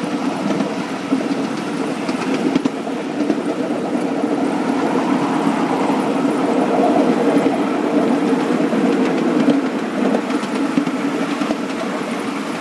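Ride-on 7¼-inch gauge SD40-2 model locomotive running along the track, heard from the driver's seat: a steady engine hum that swells a little midway, with faint clicks.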